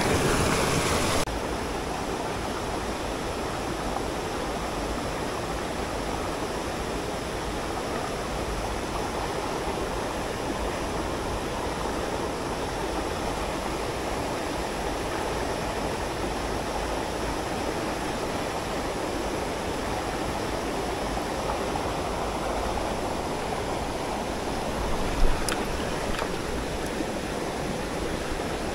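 Mountain headwater stream rushing steadily, still running high after heavy rain. The water noise drops a little about a second in, and there is one short knock near the end.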